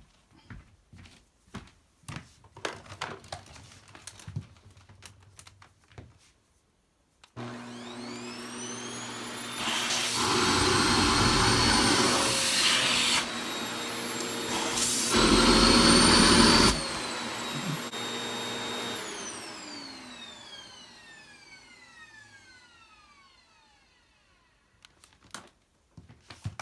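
Vacuum cleaner switched on about a quarter of the way in, its motor whine rising as it spins up. The suction rush grows louder in two stretches, then stops suddenly when it is switched off, and the whine falls away over several seconds as the motor runs down. A few small knocks and clicks come before it starts and again near the end.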